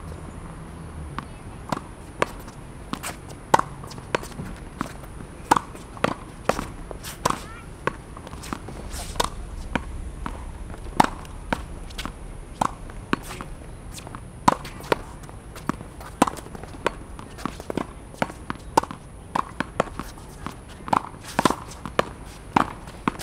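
Tennis ball being hit against a practice wall: repeated sharp pops of racket strikes, wall hits and bounces, a few a second at uneven spacing.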